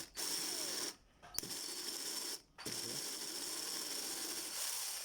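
Makita DF457D 18 V cordless drill/driver run in second gear, its motor whirring in three bursts with two short stops between them, while the chuck fails to turn: the second-speed gear is not engaging.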